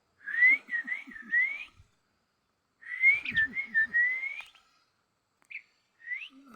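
A songbird singing clear whistled phrases: two long runs of rising, looping notes, then two short single notes near the end.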